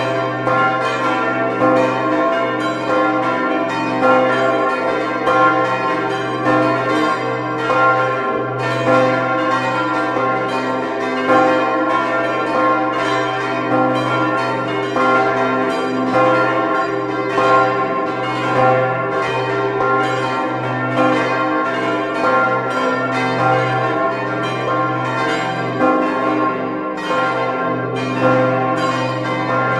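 Several church bells ringing together in a continuous peal. Their strokes overlap and follow one another without a break, over the deep, steady hum of the largest bell.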